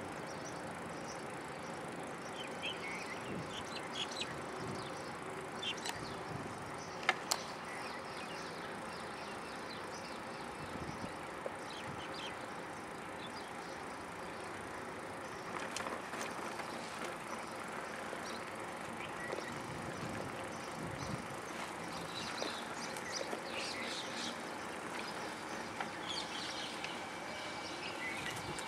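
Steady outdoor noise, with scattered faint high chirps and ticks.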